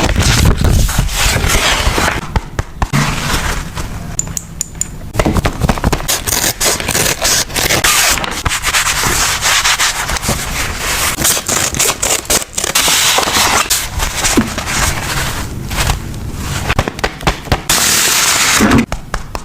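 Paper and stickers rubbed, scraped and crackled close to the microphone in a continuous run of short strokes, as in journal collaging.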